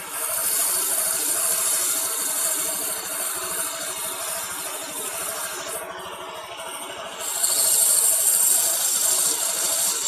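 Coarse sandpaper rubbed over a scooter CVT part: a steady scratching hiss in two long bouts, with a break of about a second near the middle.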